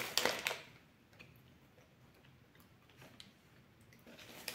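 Snack-bar wrapper crinkling briefly at the start, then a few faint scattered clicks over near quiet, and paper wrapper rustling picking up near the end.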